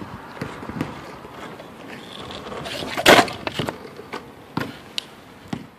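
Longboard rolling on pavement, the wheels giving a steady grinding rumble with several sharp clacks and knocks. The loudest clack comes about three seconds in.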